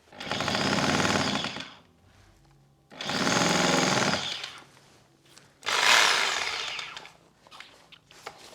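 Corded DeWalt D25133K SDS-plus rotary hammer drill run in three short bursts of about a second and a half each, with a rapid hammering rattle.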